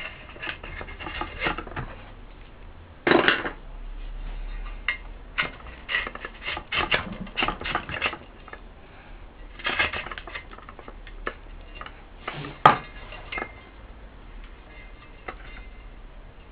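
Old foam surround and glue being scraped and picked off the rim of a Yamaha woofer's metal basket by hand and with a hand tool: irregular scratchy scrapes and small clicks, with one sharp click about three-quarters of the way through.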